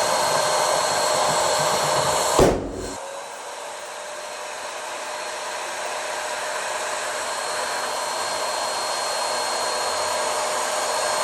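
A steady whirring blower-type motor runs. About two and a half seconds in, a balloon pops with one sharp bang; the motor noise then drops and slowly builds again.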